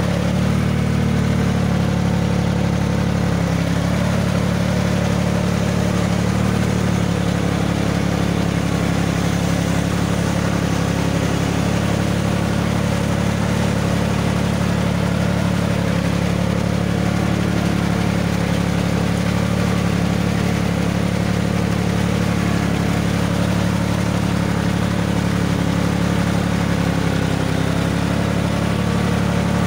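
Vehicle engine running steadily at a near-constant speed, with a few small shifts in pitch, the loudest near the start and again near the end.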